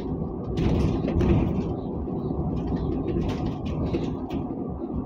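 Cabin noise inside a moving Karwa public bus: a steady low rumble from the engine and road, with short bursts of rattling and clicking from the body and fittings.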